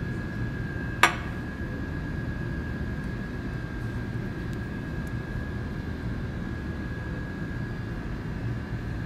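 Steady hum of laboratory ventilation with a faint high whine, and one sharp click about a second in.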